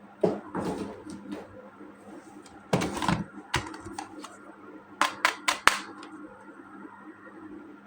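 Plastic toy pieces and packaging being handled. There are two bursts of rustling and clatter, then a quick run of about four sharp plastic clicks about five seconds in.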